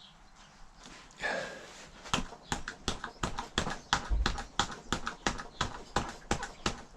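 Rapid, even knocking, about four knocks a second, starting about two seconds in, as a new rubber handlebar grip is tapped along the bar to seat it.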